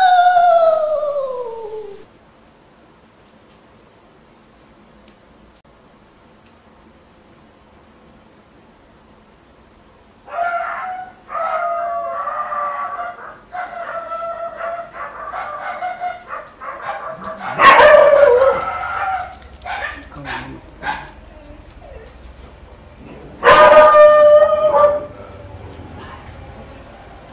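Dog howling and whining. A long falling howl dies away at the start, followed by a quieter stretch with a faint, evenly pulsing high chirping. From about ten seconds in come wavering whines and yelps, a loud cry a little later, and another held howl near the end.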